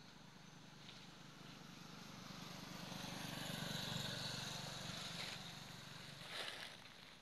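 A motor vehicle passing, its engine hum rising to a peak about four seconds in and then fading away. A short burst of noise comes near the end.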